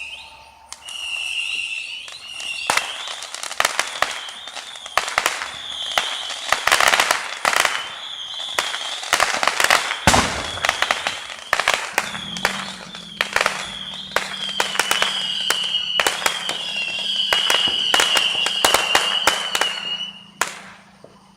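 Fireworks going off in rapid volleys of sharp bangs and crackles, with a high wavering whistle running through, all cutting off abruptly about twenty seconds in.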